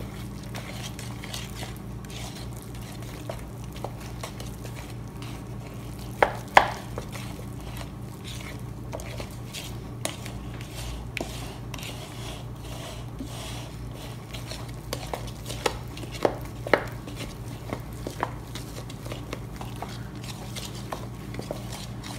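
Wooden spoon stirring thick pancake batter in a plastic mixing bowl: continual soft scraping and ticking, with a few sharper knocks of the spoon against the bowl, two close together about six seconds in and more around sixteen seconds. A steady low hum runs underneath.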